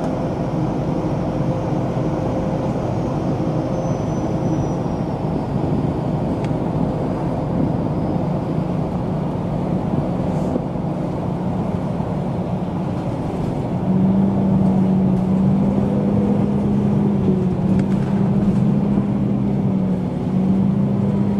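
MAN NG 313 articulated city bus running, a steady engine drone with a faint high whine that falls slowly during the first few seconds. About 14 seconds in the engine note grows louder, with a strong low hum that holds to the end.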